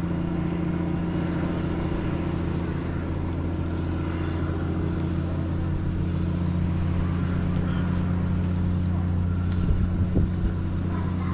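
An engine running steadily at a constant speed, a low, even hum.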